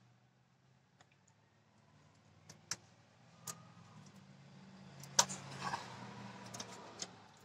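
Scattered metallic clicks and ticks as a lock ring (snap ring) is worked onto the AC compressor clutch with pliers, the sharpest click about five seconds in. Under them a low vehicle hum swells through the middle and fades near the end.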